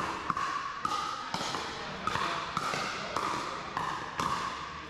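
Pickleball paddles hitting the hard plastic ball in a rally, a sharp pock roughly every half second, each hit ringing with some echo.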